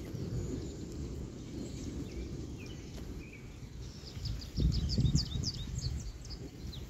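Distant thunder rolling in a steady low rumble that swells louder about two-thirds of the way in. Small birds chirp in quick, high notes through the second half.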